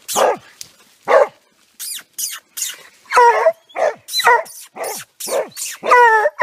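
A hunting hound barking repeatedly, about a bark every half second, breaking twice into longer howling bays, while baying at a hole in an earthen bank where quarry has gone to ground.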